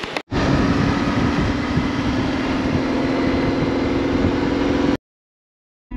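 BMW R1100GS boxer-twin motorcycle engine running steadily under way, a held engine tone over a loud rushing noise. It starts right after a brief gap and cuts off sharply about a second before the end.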